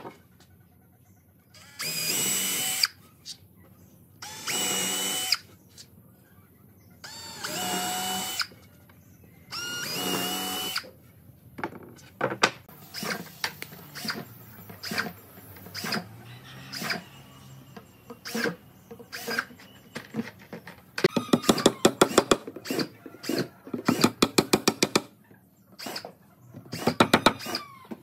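Cordless drill boring dowel holes into a pine board, in four short runs of about a second each, a few seconds apart. Many short knocks and clicks follow, with bursts of rapid clicking near the end.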